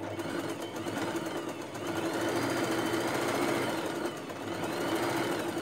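Electric sewing machine stitching a seam, starting at once and running steadily for about five seconds, its motor speed rising and falling, then stopping near the end.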